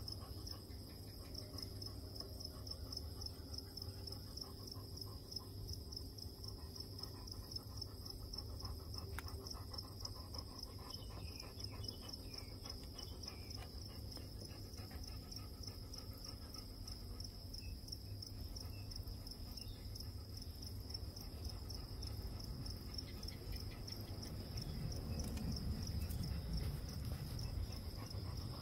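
Insect trilling, a steady high-pitched note with a fast even pulse, over a low rumble that swells near the end.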